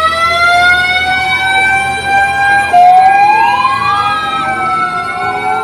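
Fire engine siren wailing: a long tone that rises and then holds steady, with a second siren tone gliding upward over it about three seconds in. Near the end the pitch drops and begins to rise again.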